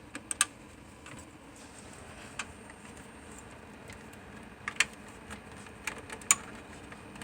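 Scattered light plastic clicks and taps, a pair right at the start, then single ones and pairs a couple of seconds apart, the sharpest near the end: an RJ45 plug on a Cat 5 Ethernet cable being fitted into a PC's Ethernet port.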